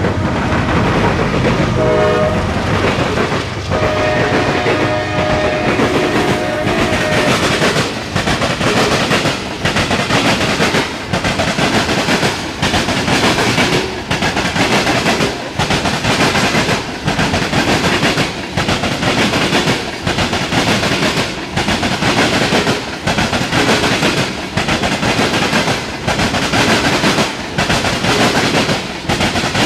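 Norfolk Southern ethanol train of tank cars passing close by. The locomotive horn gives a short blast, then a longer one within the first several seconds. After that comes a steady clickety-clack of wheels over rail joints, dipping about every second and a half as each car rolls past.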